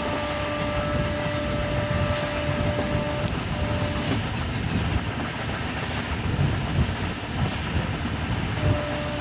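Express train's passenger coaches running along the track on a curve, heard from an open coach window: a steady rumble of wheels on rail with wind, and a few louder knocks near the end. A steady whine runs through it, drops out about three seconds in and returns near the end.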